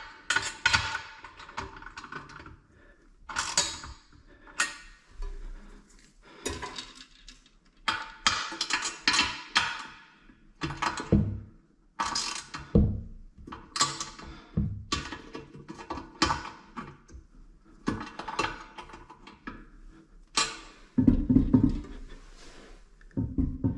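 Irregular clicks, knocks and clatter of hand tools and metal hardware being worked while fastening a toilet, with a low rumble near the end.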